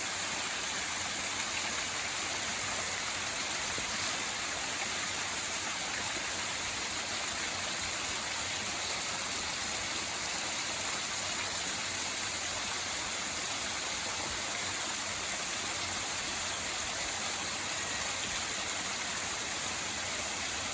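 Waterfall swollen with flood water: a steady, unbroken rush of falling water.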